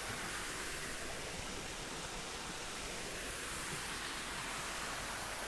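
A steady, even hiss with no other sound on top: the background noise of the room or the recording.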